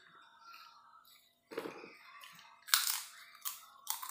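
Close-up crunching and chewing of a crisp fried snack eaten by hand, with a few sharp, loud crunches in the second half, the loudest a little before three seconds in.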